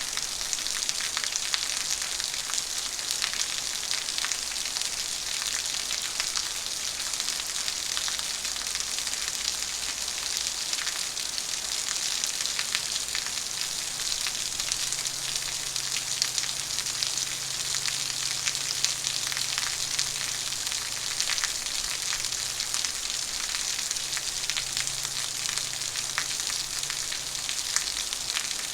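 Heavy rain falling steadily, a dense even hiss of many small drop impacts.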